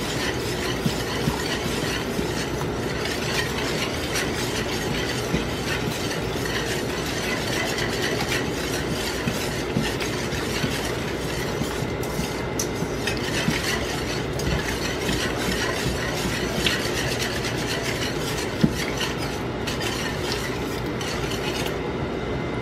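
Whisk beating a liquid sauce in a pan: a steady, fast run of light clicks and scraping against the pan.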